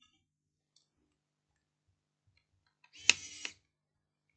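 Near silence, then about three seconds in a brief rustle of handling with one sharp click, from laptop parts being handled on the workbench.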